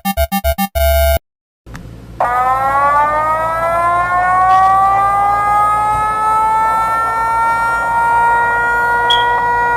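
Mock emergency alert system alarm: rapid electronic beeps, about six a second, stop about a second in and are followed by a short steady tone and a brief gap. Then a civil-defence-style siren winds up, its pitch rising over several seconds and then holding steady.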